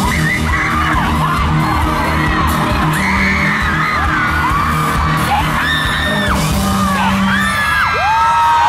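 Live pop band music in a large hall, with a steady beat and bass line and fans screaming and whooping over it. Near the end one long high cry is held.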